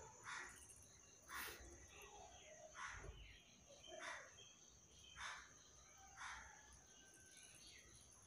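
Faint steady high drone of crickets, with about six short breathy sniffs through the nose spaced roughly a second apart.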